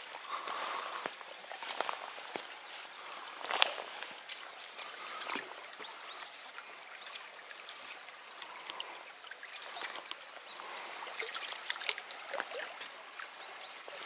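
Water of a shallow taiga stream running and trickling over its bed, with a few brief sharp noises about three and a half seconds in, about five seconds in, and again around eleven to twelve seconds.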